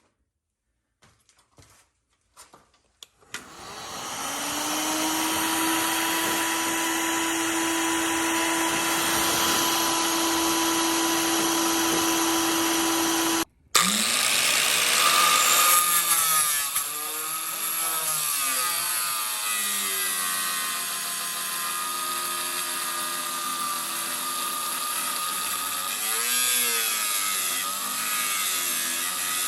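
Electric grinder whining as it spins up about three seconds in and runs steadily, then cuts out briefly about halfway through. It restarts and cuts into the weld on the steering bellcrank pin, its pitch dipping and recovering again and again as it bites into the steel.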